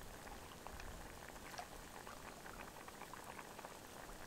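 Tagliatelle boiling in water in a Trangia aluminium saucepan: a faint, steady patter of small bubbles popping.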